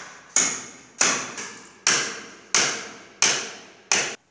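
A hammer driving a nail into a wooden air-conditioner frame: six sharp blows at about three every two seconds, each ringing briefly.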